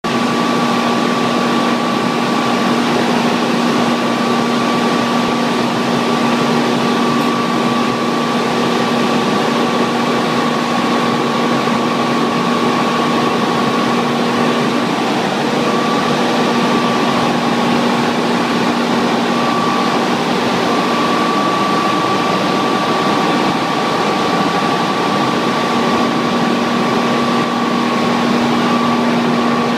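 Medium-size hydro turbine and generator set running at speed: a loud, steady machine hum over a dense rush of noise, with two constant tones, one low and one high. The lower tone fades out for a few seconds past the middle and returns.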